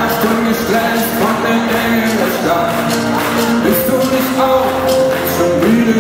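Live pop-rock band music with sung vocals: the band plays guitars and drums, a voice holds long notes over it, and a large gospel choir stands with the band.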